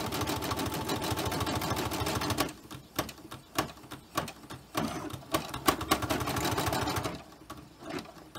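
Home embroidery machine stitching, a steady rapid rattle of the needle that breaks into separate clicks about two and a half seconds in. The rattle resumes near five seconds and breaks into clicks again about seven seconds in. The machine is sewing a small light pink detail (the eye) of an elephant design.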